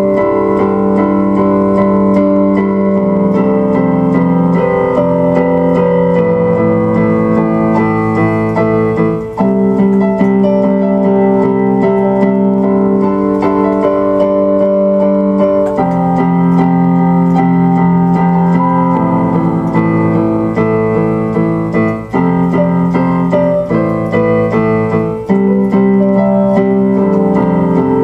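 Instrumental keyboard music playing slow, held chords that change every few seconds.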